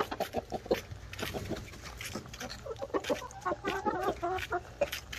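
Hens clucking in short repeated notes, with a longer warbling run of calls about three seconds in, over quick sharp taps of beaks pecking into watermelon flesh held in a hand.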